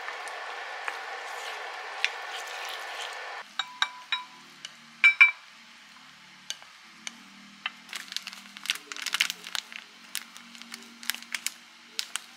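Utensils clinking and scraping against a ceramic pan and plate as pasta is stirred and served. A steady hiss under the stirring cuts off about three and a half seconds in. Then come sharp clinks, the loudest about five seconds in, and a run of light scrapes and taps as the pasta is pushed onto the plate.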